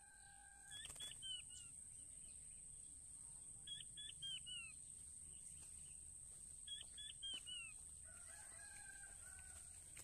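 Quail calling faintly: a quick run of four or five short, falling whistled notes, repeated about every three seconds.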